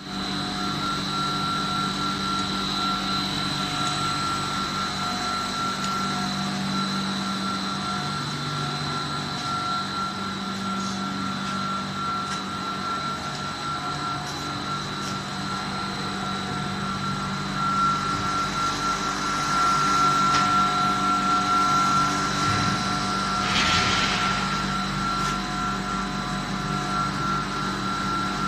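PVC spike-back anti-slip mat production line running: a steady mechanical hum with a constant high whine from its motors and rollers. A short hiss a few seconds before the end.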